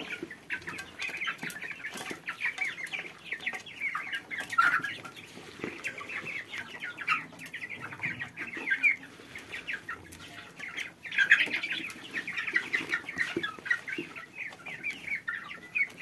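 A feeding flock of chickens and young Muscovy-cross ducks calling: many short, high peeps and clucks overlapping one another, with a few sharp clicks among them.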